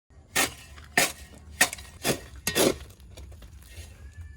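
A metal garden tool striking the ground in a steady rhythm while digging: five sharp, clinking blows, about two a second.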